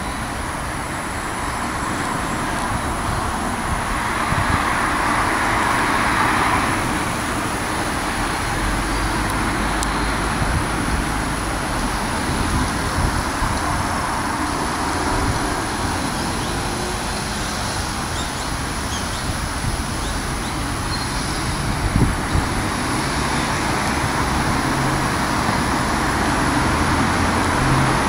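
Steady road traffic noise, swelling briefly about five seconds in as a vehicle passes.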